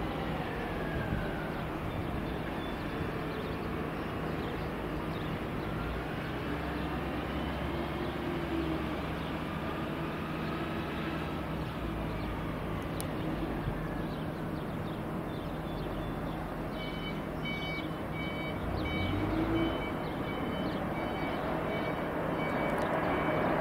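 Jet airliner engines running at a distance: a steady rumble with faint rising and falling whines, growing louder near the end.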